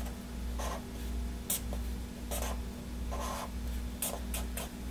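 Felt-tip marker scratching across notepad paper in a series of short strokes as lines of a circuit diagram are drawn, over a steady low hum.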